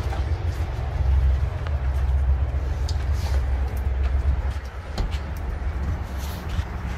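Low, uneven rumble of wind buffeting the microphone, with a few short clicks through it.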